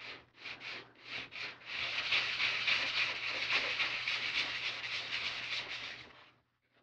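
Sanding block with 220-grit sandpaper rubbing over the flat face of a laser-cut plywood rocket fin: a few short separate strokes, then about four seconds of continuous circular sanding that stops near the end.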